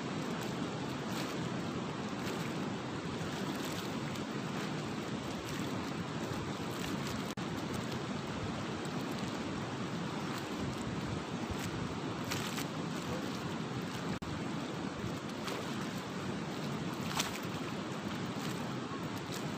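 Steady outdoor rush of wind and fast-flowing river water, with a couple of brief faint clicks, the sharpest near the end.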